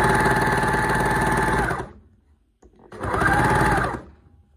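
Overlocker (serger) stitching and trimming the edge of a fabric insert in two short runs. It runs for almost two seconds, stops, then runs again for about a second and stops.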